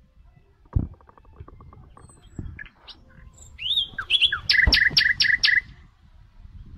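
A bird calls with a slurred note, then a quick run of about six sharp chirps a little past the middle. Low dull splashes come now and then from hands working in shallow muddy water.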